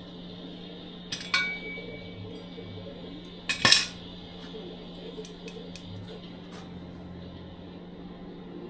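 Metal clanking: a couple of sharp metallic knocks, the first ringing briefly, the loudest about three and a half seconds in, then a few light ticks, over a steady low hum.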